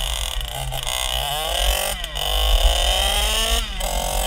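1984 Yamaha YZ80's two-stroke engine revving up twice, its pitch climbing and then dropping back each time, over a steady low rumble.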